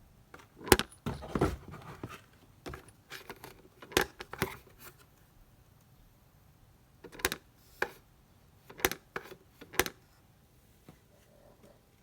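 Irregular knocks and rattling clatter of hard objects being handled, in a run over the first five seconds and again from about seven to ten seconds in.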